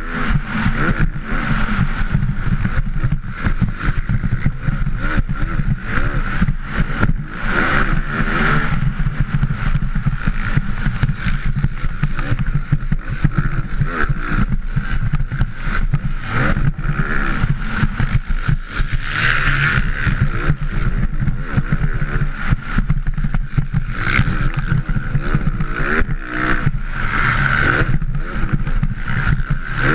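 Motocross bike engine revving hard, its pitch climbing and dropping again and again as the rider races and shifts through gears, heard from the rider's helmet with wind buffeting the microphone.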